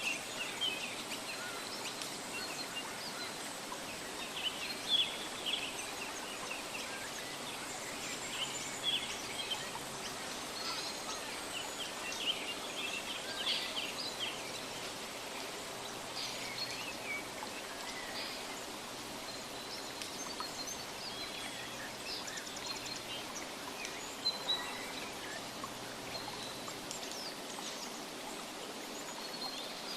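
Birds chirping, many short high calls scattered throughout, over a steady, even background hiss.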